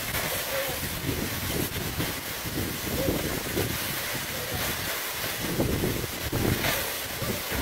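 A tall waterfall's steady roar of falling water, with wind buffeting the microphone.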